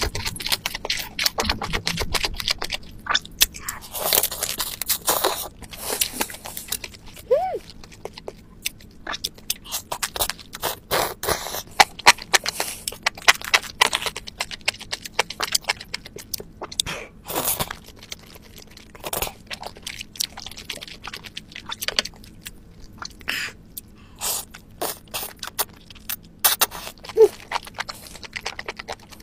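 Close-miked eating: crunching and chewing of spicy crab, with crab shell cracking in sharp, irregular clicks.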